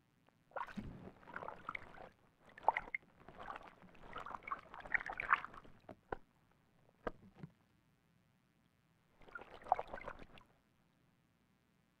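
Ural owl bathing in a shallow pool, splashing as it dips into the water and beats its wet wings. There is a long run of splashing over the first half, then a few single splashes, and another short bout of splashing near the end.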